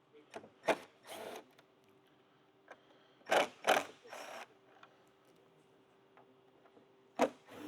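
A cordless power driver runs in short bursts, about six in three groups, backing out the bolts on top of a motorcycle fairing.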